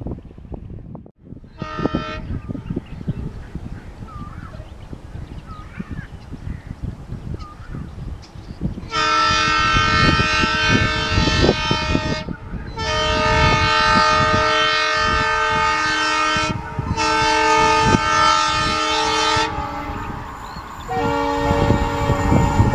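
Indian Railways ALCo diesel locomotive's multi-note air horn: a brief toot near the start, then long steady blasts from about nine seconds in with two short breaks, and a blast of slightly lower pitch near the end. Under it runs the rumble of the engine and the train on the track.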